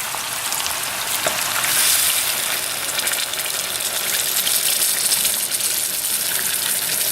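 Chicken pieces sizzling in a frying pan as milk is poured in, with a louder hiss about two seconds in.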